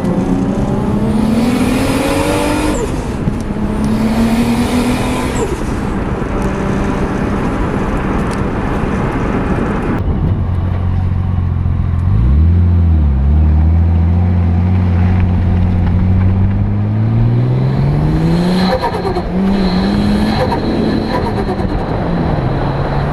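Turbocharged car engines under hard acceleration, their pitch climbing and then dropping off, each drop met by a burst of hiss: turbo flutter as the throttle closes. About ten seconds in the sound switches to a deeper engine that climbs slowly in pitch.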